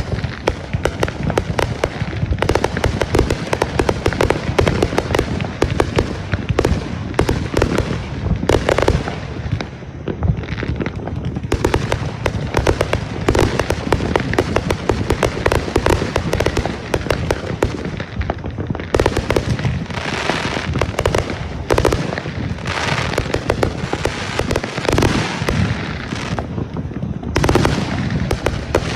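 Fireworks going off in a rapid, dense barrage: many overlapping bangs and crackles one after another, easing briefly about ten seconds in, near the middle and near the end before picking up again.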